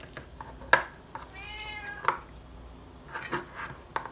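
A domestic cat gives one long meow, begging for food. Sharp knocks come before and after it, the loudest about three quarters of a second in.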